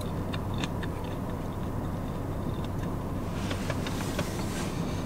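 Close-up chewing of a fried chicken sandwich, with small wet mouth clicks, over a steady low car-cabin hum. A short rustle comes about three and a half seconds in.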